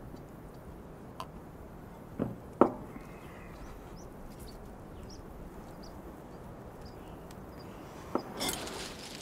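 Steady outdoor air ambience broken by sparse knocks: two a little over two seconds in, the second the loudest, and another near the end followed by a brief rush of noise.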